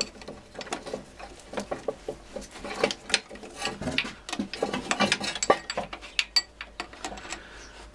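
Irregular metallic clicking and clinking of hand tools and a nut being worked off a starter motor cable terminal, the clicks coming in clusters.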